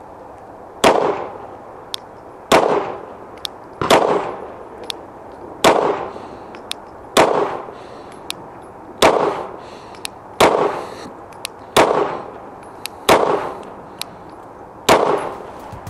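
A Glock 19 Gen 5 9mm semi-automatic pistol fired ten times in slow, deliberate single shots about one and a half to two seconds apart, each shot followed by a short ringing decay. Faint small clicks fall between some of the shots.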